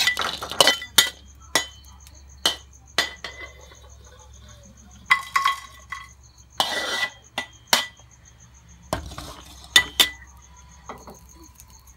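A metal spatula clinking and scraping against a wok, with sharp knocks as the wok is handled on the gas stove. From about eight seconds in, a cricket chirps faintly in the background.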